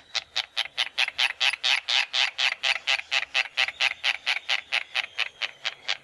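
White terns calling: a fast, even chatter of short repeated notes, about five a second.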